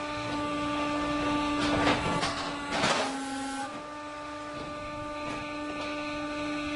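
A machine running with a steady, even hum, with a couple of short scraping or knocking sounds about two and three seconds in.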